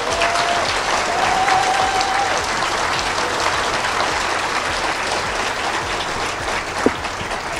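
Audience applauding: dense, steady clapping that thins a little near the end.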